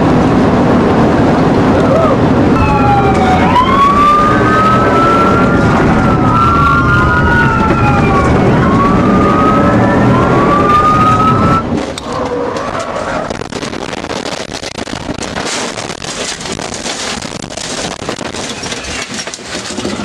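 Police sirens wailing up and down over the loud engine and road noise of a patrol car in a high-speed pursuit, with two sirens at times sounding together. About 12 s in, the sound cuts to quieter rough rushing noise with scattered knocks and clicks.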